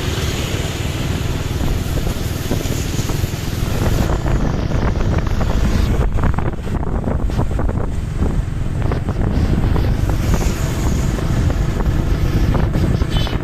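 Wind buffeting the microphone over the steady road and engine noise of a moving vehicle; no horn tune sounds.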